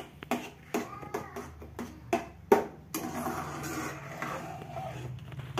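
A steel spoon knocks and scrapes against a steel kadhai while stirring a thick mixture, about six sharp clinks in the first three seconds, then steadier stirring. A low hum runs underneath.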